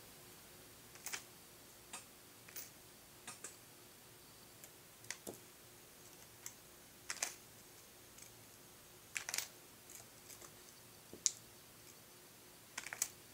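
Small metal screws, nuts and washers clicking faintly as they are picked up one at a time and dropped into a small plastic bag: a sparse, irregular run of light clicks.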